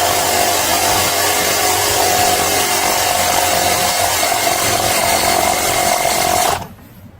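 Electric air pump running steadily with a constant whine, filling an Air Lift 1000 helper air spring through its Schrader valve; it cuts off suddenly about six and a half seconds in.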